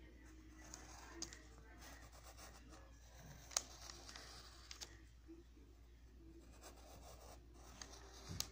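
Faint scratching of a pencil on lined notebook paper during sketching, with a few short clicks, the loudest about three and a half seconds in.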